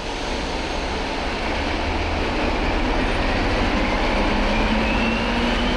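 ČD class 754 diesel locomotive working under power as it pulls a passenger train, its engine note and a high whine rising in pitch from about two seconds in.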